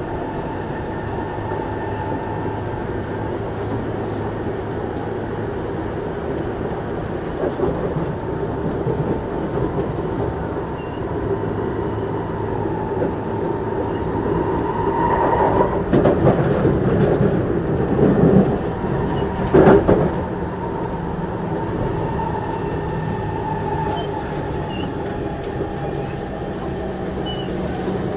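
MRT train running between stations, heard from inside the carriage: a steady rumble with a thin whining tone. About halfway through, the wheel and track noise grows louder and rattles for several seconds, ending in a sharp clunk.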